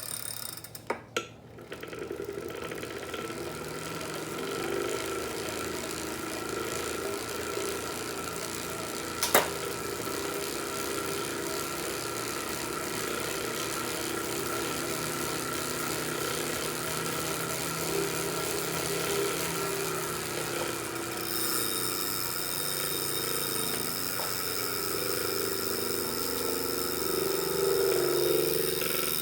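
Wahoo KICKR (2018) direct-drive smart bike trainer running under pedaling, with a steady whirring hum and a whine: the abnormal noise the unit developed after two and a half years of use. A single sharp click sounds about nine seconds in, and a higher whine joins about two-thirds of the way through.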